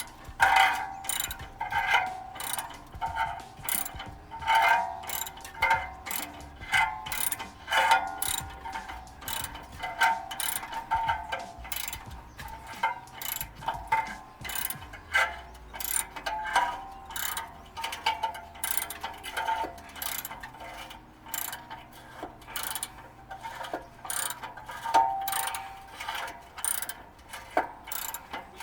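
Socket ratchet clicking in repeated short strokes with a metallic ring, working on the exhaust bolts.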